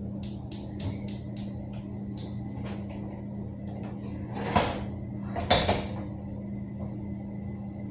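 Kitchen handling knocks: a few light clicks near the start, then two louder knocks about four and a half and five and a half seconds in, like a cupboard door or dishes being set down, over a steady low hum.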